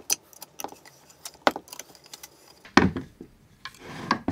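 Small metallic clicks and clinks of an Allen key and screws as wheeled acetal plates are fitted to an aluminium C-beam. A louder knock comes about three seconds in, and a shorter handling clatter comes near the end as the plate assembly is shifted on the bench.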